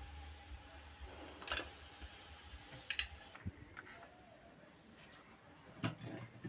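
Oil sizzling in a frying pan as a grated-potato fritter is lifted out, with two sharp clicks of the utensil against the pan; the sizzle cuts off suddenly about halfway through. A single light knock comes near the end.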